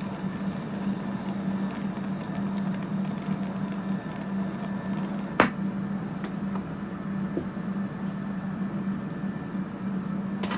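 Steady whir of electric fans running to clear soldering fumes, with a constant low hum. A single sharp click about five and a half seconds in.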